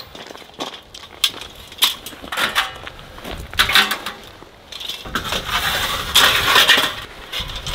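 Camping fire pit being put together by hand: metal parts and wooden-slatted panels knock and clink into place, then a longer scraping as a metal tray slides into its base, with gravel crunching underfoot.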